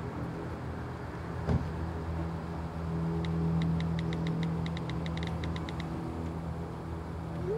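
A quick run of smartphone keyboard tap clicks, roughly seven a second for under three seconds midway through, over a steady low vehicle hum. A single sharp knock comes about a second and a half in.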